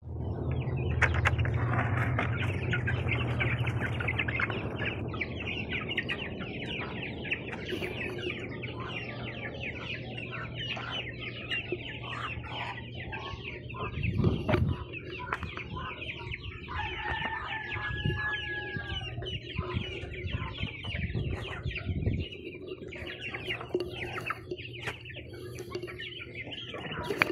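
A flock of chickens clucking and chirping continuously, many short overlapping calls, over a low steady hum that is loudest in the first few seconds.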